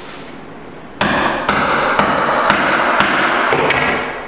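Hammer striking a chisel set in the seam of oak floorboards, about two sharp blows a second, starting about a second in and tapering off with a few lighter taps.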